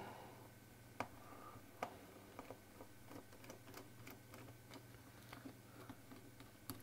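Near silence, with faint scattered clicks and ticks of fingers handling a small plastic display module and pressing on its label.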